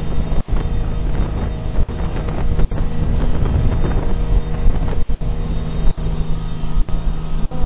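Motorboat engine running steadily under way, a low continuous hum that cuts out for a split second several times.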